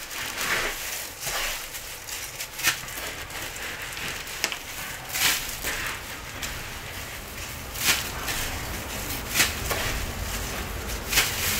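Gloved hand raking and sifting through Hollywood Wyoming unscented bentonite clumping cat litter: granules rustling and scraping in irregular bursts, several seconds apart.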